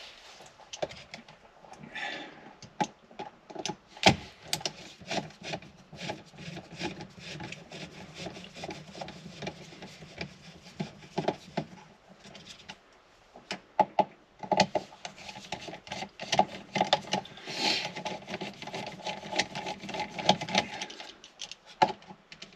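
T20 Torx driver turning out the small screws that hold a steering-column clock spring, with rapid clicking and scraping of the bit in the screw heads. There is a short pause about twelve seconds in before the clicking starts again.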